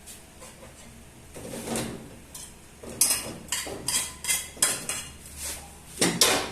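A kitchen utensil knocking and scraping against a bowl as mashed green banana is worked. There is a soft scrape about a second and a half in, then an uneven run of sharp clinks over the second half.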